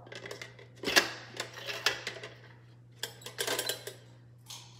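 Light clicks and clatters of the plastic Bean Boozled game box and its jelly beans being handled on a tabletop, scattered single clicks with a quick run of them in the middle.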